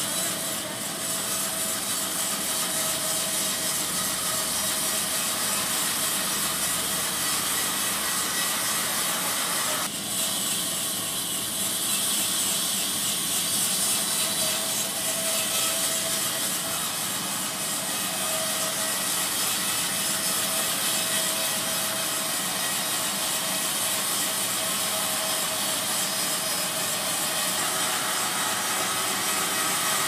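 Horizontal bandsaw mill blade cutting lengthwise through a coconut palm log: a steady, even sawing noise, with a brief dip about ten seconds in.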